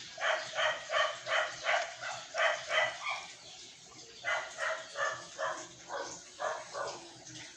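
A dog barking in two quick runs of about eight or nine barks each, about three a second, with a short pause in between.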